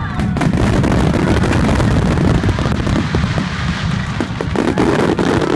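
Fireworks finale barrage: many aerial shells bursting in quick succession, the booms overlapping into a continuous rumble with sharp cracks on top, recorded on a phone.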